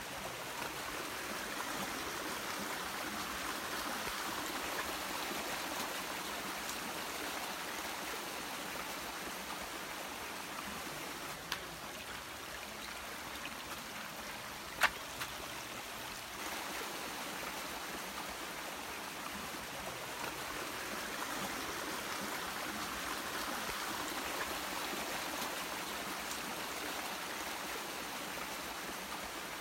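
Shallow rocky stream flowing and trickling over stones, a steady babble of running water. A single sharp click cuts through it about halfway.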